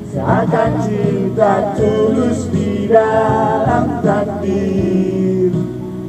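A man singing through a handheld microphone over a musical backing track.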